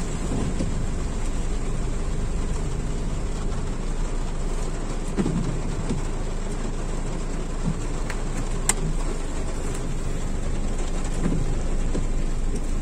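Heavy rain falling on the car's roof and windscreen, heard from inside the cabin as a steady hiss over the low hum of the running engine, with a few light ticks.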